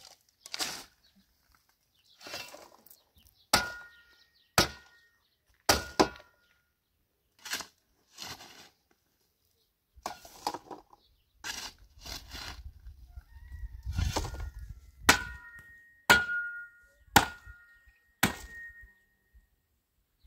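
Repeated sharp strikes, roughly one a second, many of them ringing briefly with a metallic tone after each hit.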